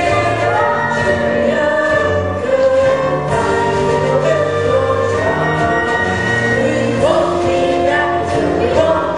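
Music with a choir singing held, wavering notes over a steady bass line.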